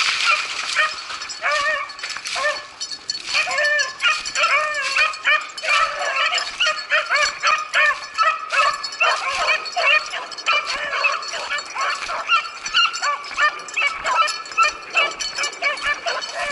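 Several beagles baying in a rapid, overlapping chorus of short, yelping cries while running a rabbit's scent trail, with a brief lull about three seconds in.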